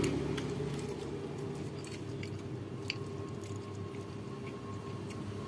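Close-up chewing of a mouthful of rice and fried egg, with a few light clicks of a metal spoon against a ceramic plate, over a low steady hum.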